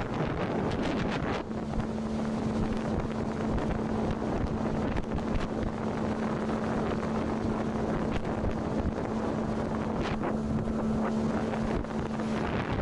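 Outboard motor running at a steady pace, pushing an inflatable boat along, a constant hum under wind buffeting the microphone.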